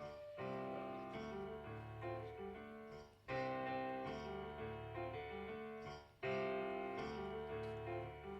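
Instrumental music: a keyboard plays sustained chords in phrases, with brief breaks about three and six seconds in.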